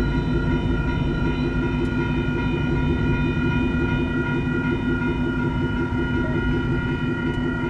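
Union Pacific SD59MX diesel locomotives running with a steady low rumble, with a railroad crossing's WCH electronic bell ringing over it as a steady cluster of high ringing tones.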